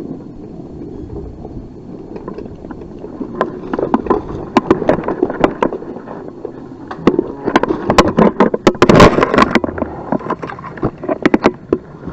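Mountain bike riding a rough dirt trail, heard on a bike-mounted camera: tyre rumble and wind noise, then the bike rattling and clattering over rocks in rapid knocks, loudest about nine seconds in.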